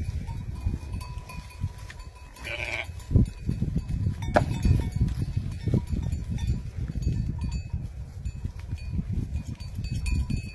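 A sheep bleats once, briefly, about two and a half seconds in, over a constant low rustling rumble. A couple of sharp knocks follow shortly after.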